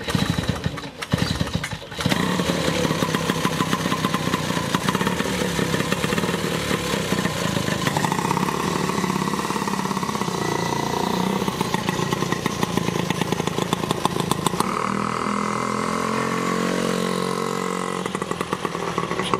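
1931 Coventry Eagle's 198cc Villiers two-stroke single starts with a few uneven firings in the first two seconds, then runs with rapid, steady firing. Its pitch rises and falls as the bike is ridden away.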